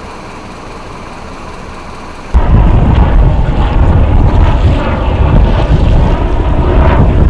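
Steady background noise that suddenly gives way, about two seconds in, to a very loud, dense rumble with wind buffeting the microphone, typical of a fast-moving boat in open air.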